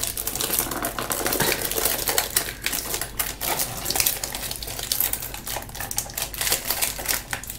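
Cellophane plastic film crinkling and crackling in quick, irregular clicks as fingers pick at it and peel it off a set resin piece it has stuck to.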